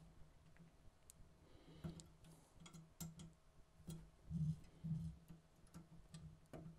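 Faint, irregular clicks and light taps from a small hex key and metal parts as a screw at the foot of a 3D printer's lead screw is tightened, with a couple of soft thuds of handling about two-thirds of the way in.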